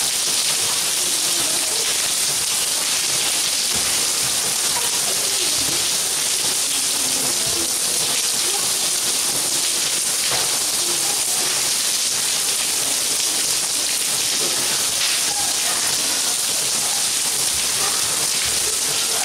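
Steady rain falling on paving, an even hiss that holds level throughout.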